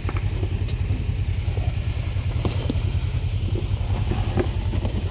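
Off-road vehicle engine running steadily at low revs, a low, evenly pulsing rumble, with a few faint clicks over it.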